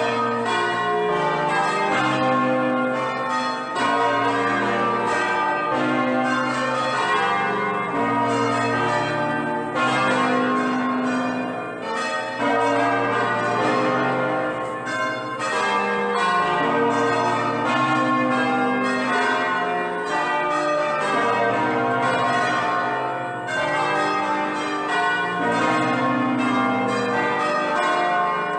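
Church bells ringing a continuous peal, several bells struck over and over, their tones overlapping and ringing on.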